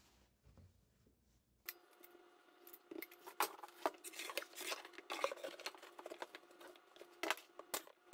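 Quick, irregular clicks and light clatter of hand work on wooden toe-kick boards and tools, beginning after a short quiet start, over a faint steady hum.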